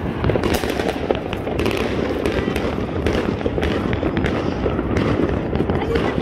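New Year's fireworks going off in great numbers at once: a dense, unbroken crackle of bangs and pops, with no single burst standing out.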